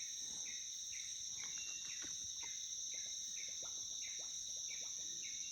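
Insects buzzing steadily in tropical bush, with a short falling chirp repeating about twice a second.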